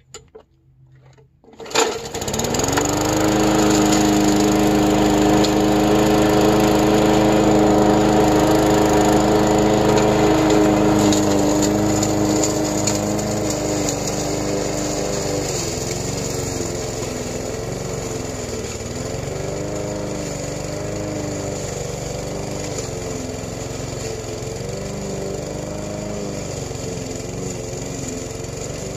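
Yard Machines push mower's small four-stroke engine pull-started about two seconds in: it revs up quickly and settles into a steady run. From about halfway its pitch dips and recovers again and again as it mows grass under load.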